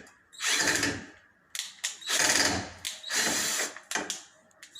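Cordless power drill or screwdriver running in about four short bursts, each under a second, driving screws back in while the washing machine is reassembled.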